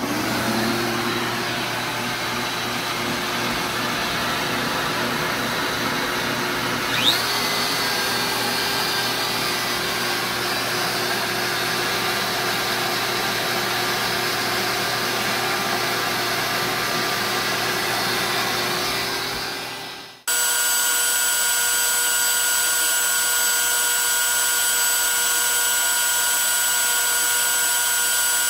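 Shop vacuum switched on and running steadily, with a short rising whine about 7 seconds in. About 20 seconds in the sound cuts to the steady, multi-pitched whine of a DeWalt compact router spinning an eighth-inch two-flute bit on a CNC milling aluminium plate.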